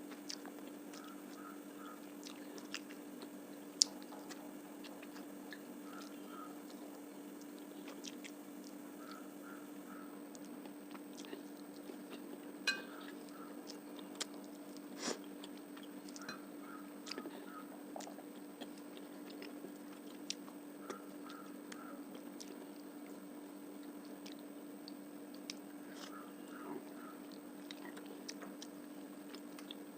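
A person chewing a mouthful of rice and fish curry close to the microphone, with soft wet mouth clicks and a few sharper clicks, over a steady low hum.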